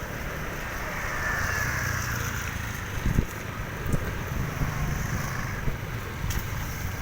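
Road traffic noise: vehicles passing along the street with a steady low rumble and a swell of hiss, and a couple of short thumps about three and four seconds in.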